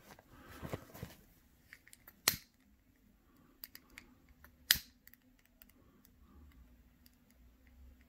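A disposable lighter being struck, giving two sharp clicks about two and a half seconds apart, with a few smaller ticks and soft rustling of disposable paper face masks being handled.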